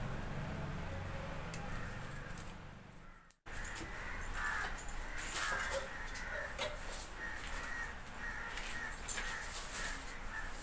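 Birds calling repeatedly over the faint crackle of twigs burning in a clay wood-fired stove. A low hum in the first three seconds fades away and the sound drops out for a moment.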